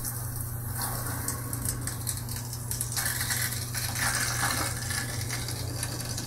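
Water hissing and crackling through a slowly opened fill valve as a hydronic heating line is charged from the boiler's automatic water feeder, growing busier about halfway through. A steady low hum lies underneath.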